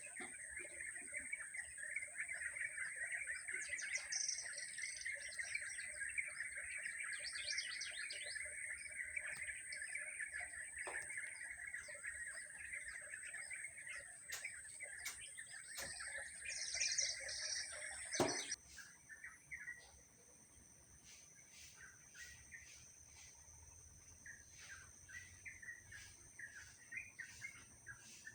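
Many small birds chirping and twittering together in a dense chorus, with a steady high tone underneath. About two-thirds of the way through the chorus cuts off suddenly, leaving quieter, scattered chirps.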